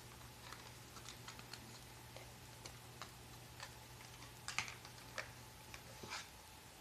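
Scattered light clicks and taps, as of small parts and tools being handled, over a faint low hum that stops about six seconds in.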